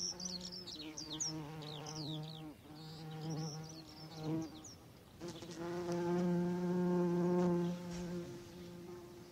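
A fly buzzing in a wavering drone that swells and fades as it moves about, loudest about two-thirds of the way through. Birds chirp in short high notes during the first half.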